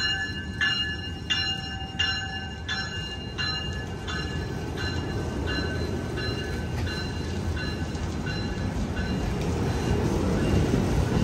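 Double-deck Amtrak California passenger cars of a departing train rolling past with a steady rumble that grows louder toward the end. Over it a bell rings about one and a half strokes a second, strong at first and fading away over the first several seconds.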